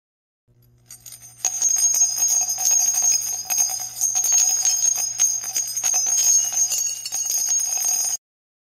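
Intro sound effect: a dense run of quick strikes over steady high ringing tones. It starts faintly about half a second in, jumps loud at about a second and a half, and cuts off abruptly near the end.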